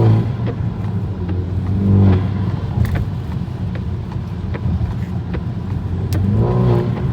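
BMW 330i (G20)'s turbocharged four-cylinder engine running while driving, under steady road rumble, its note swelling and easing off three times.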